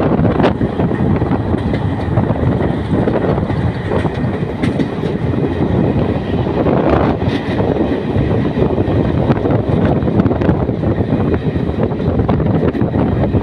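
Passenger train running at speed, heard from aboard: a steady, loud rumble of coach wheels on the rails with scattered clatter.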